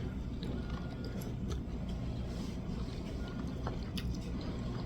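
Low, steady background hum with a few faint clicks and taps.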